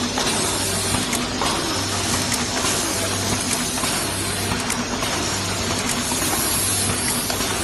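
Automatic band-aid cartoning machine running steadily: a dense mechanical clatter over a low hum that comes and goes at a regular pace.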